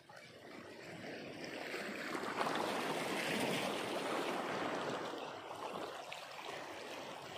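Shallow seawater sloshing and splashing around someone wading on a reef flat, a steady rushing noise that builds over the first couple of seconds and then holds.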